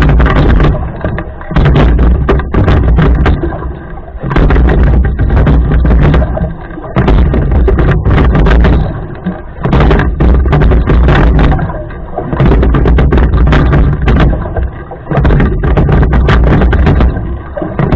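Rowing boat under way: a heavy low rumble of water rushing past, with knocks of the oars in their oarlocks. The sound dips briefly once per stroke, about every two and a half to three seconds.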